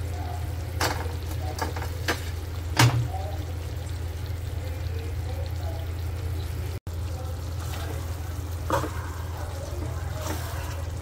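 A spoon knocking and scraping against a cooking pot of chicken curry, a few sharp clinks spread out, over a steady low hum.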